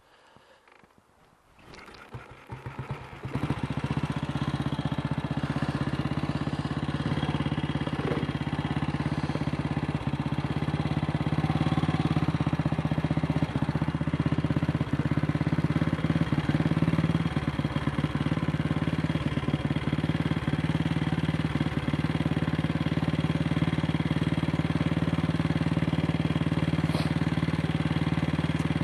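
AJS Model 8 motorcycle engine catching about two seconds in with a few uneven firings, then running steadily with brief dips in its beat.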